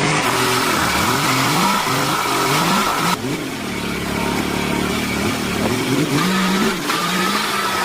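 Engine revving up and down repeatedly, with an abrupt change of sound about three seconds in.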